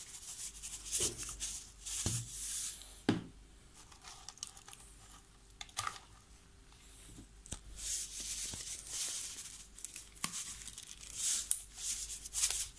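Rustling and scraping kitchen handling noises with several sharp knocks, from whole tulingan fish and ingredients being arranged in a cooking pot.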